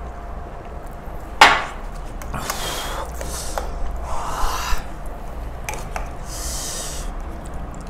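A glass set down sharply on a glass tabletop about one and a half seconds in, then several hissing breaths drawn and blown through an open mouth burning from spicy noodles, with spoons scraping in bowls.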